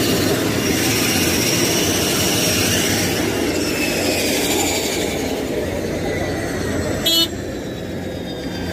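ATR 72 turboprop engines winding down, a steady rush under several high whines that slowly fall in pitch. About seven seconds in, a car horn gives one short beep.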